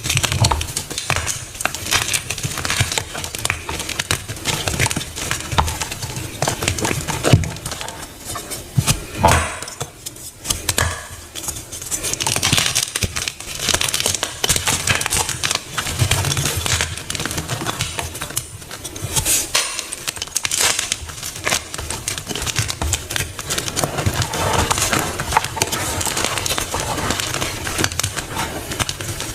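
Dense crunching and crackling of a dyed block being crushed, many small cracks one after another with brief pauses.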